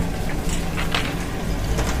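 Steel slag processing machinery, a rod mill and rotary screen, running with a steady low rumble, and slag rattling and cracking in short clatters a few times.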